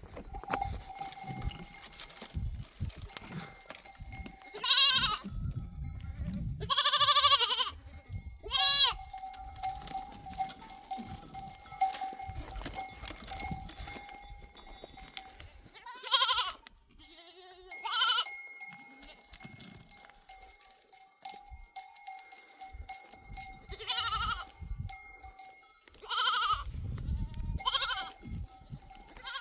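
Sheep bells ringing steadily among a grazing flock, with sheep bleating again and again, about eight calls, some drawn out to a second or so.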